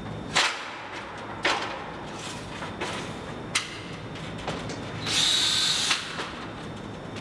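A few sharp knocks as a stepladder is climbed. A little past the middle, a cordless drill runs in one short burst of under a second with a high whine.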